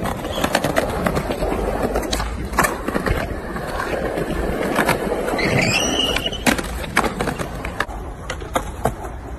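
Skateboard wheels rolling over rough concrete, with several sharp clacks of the board popping and landing.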